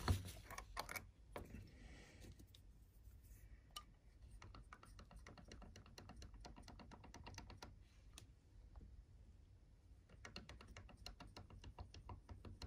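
Oil wash being stirred in its jar: a louder knock at the start, then long runs of light, quick clicks as the stirrer taps the inside of the container, mixing back in pigment that has settled to the bottom.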